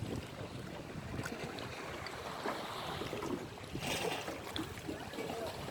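Sea waves washing on the shore with wind on the microphone, a steady rush with a brief louder wash about four seconds in.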